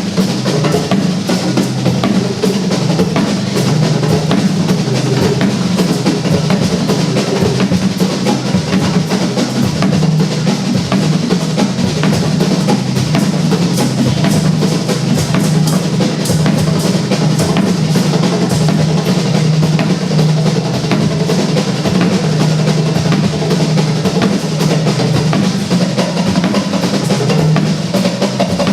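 Instrumental music carried by fast, dense drumming on a drum kit, snare and bass drum, over a steady low bass.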